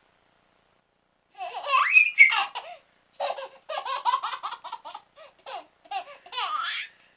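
A baby laughing: after about a second of quiet, a rising squeal, then a run of short, rhythmic laughs at about three a second.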